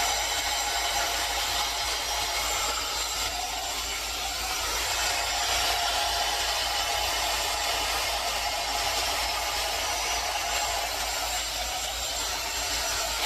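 Hot-air hair dryer brush running steadily, its fan blowing with a faint motor whine.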